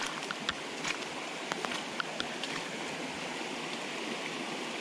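A swift-running creek, its water rushing steadily, with a few scattered light clicks and taps over it.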